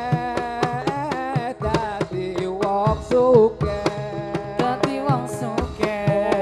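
Javanese topeng ireng dance accompaniment: quick hand-drum strokes under a wavering melody line.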